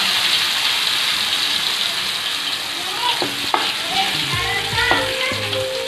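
Ground masala paste of onion, coconut, sesame, garlic and ginger sizzling as it fries in hot oil in a metal kadhai. About three seconds in, a metal spoon starts stirring it, clicking and scraping against the pan.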